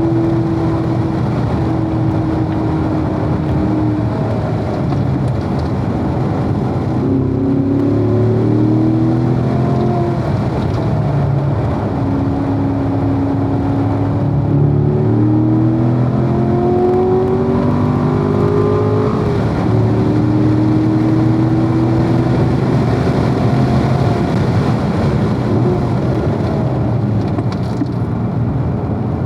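Corvette V8 engine being driven hard on a race track: the pitch climbs under acceleration, falls away at each gear change and lift, then climbs again, several times over, with a steady rush of wind and road noise beneath it.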